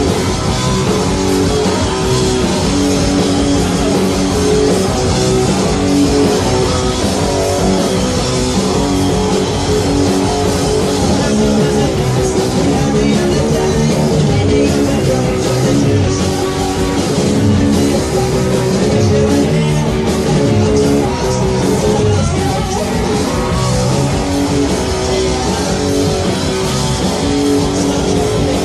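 Punk rock band playing live: electric guitar, bass and drums going at a steady loud level through a song, recorded at a concert.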